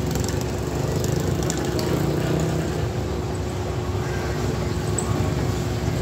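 Steady engine noise of slow road traffic, a motorcycle and a small truck going past.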